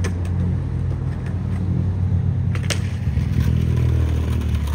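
Skateboard wheels rolling on concrete with a steady low rumble, with a sharp clack about two and a half seconds in. Near the end the board slides along a concrete curb.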